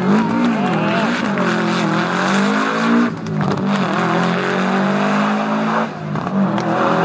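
Subaru Impreza rally car's flat-four engine revving hard on a stage. The pitch rises and falls as it is driven through the gears, with short dips about three seconds in and again near six seconds.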